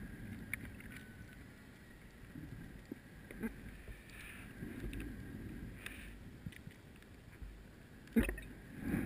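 Muffled underwater sound picked up through a GoPro's waterproof housing on a rebreather dive: a low rumbling wash of water noise with scattered faint clicks. A louder rush of noise comes near the end.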